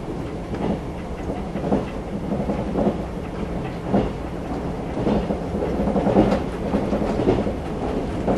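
Running noise of a JR 381 series limited-express electric train at speed, heard inside the car: a steady rumble and low hum, with clacks about once a second from the wheels on the track.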